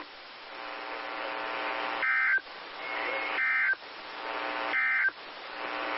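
Emergency Alert System end-of-message data bursts: three short bursts of warbling two-tone digital code about 1.4 s apart. They sit over a steady buzzing hum that drops out at each burst and swells back up after it.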